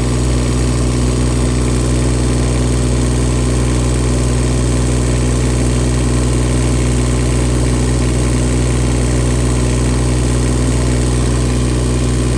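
Bobcat E20 mini excavator's three-cylinder Kubota diesel idling steadily. It runs evenly with no knocks or ticks, a sign of a healthy engine.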